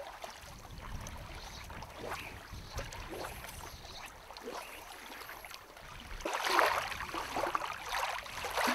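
Small wind-driven waves lapping and splashing on a gravel shore, the splashing getting louder in the last couple of seconds.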